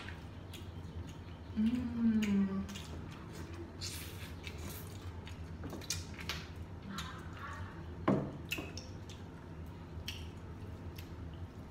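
Hands peeling boiled shrimp and crab shells and mouths eating: wet squishing, small clicks and cracks of shell, and smacking, with a short hummed vocal sound about two seconds in.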